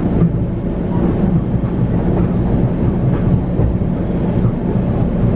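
Long Island Rail Road train heard from inside the passenger car: a steady low rumble of the car rolling along the track at slow speed.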